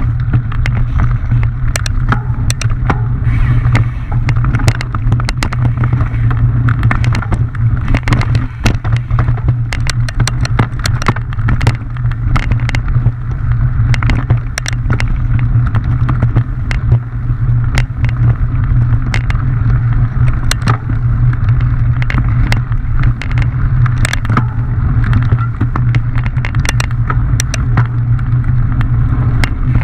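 Mountain bike riding fast down a rough singletrack descent: a steady low rumble of tyres and wind, with frequent sharp rattles and knocks from the bike jolting over the trail.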